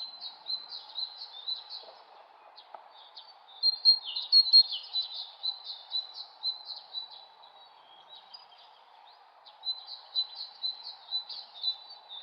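Songbirds singing in quick bursts of high chirping notes, in three bouts separated by short lulls, over a steady background hiss.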